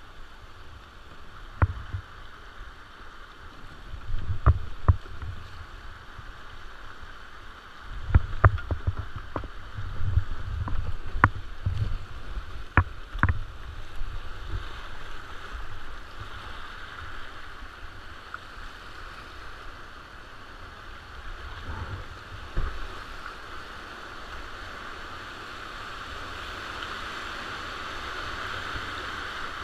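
Alpine whitewater river rushing around a kayak, heard from a camera mounted on the boat, the rush growing louder near the end as the kayak runs through rapids. In the first half, a string of sharp knocks and low thumps from the paddle and hull against the water.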